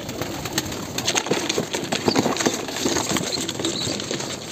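Pigeon wings flapping, then pigeons scuffling and cardboard rustling and knocking as a bird is lifted out of a cardboard box: a continuous run of irregular short flutters and knocks.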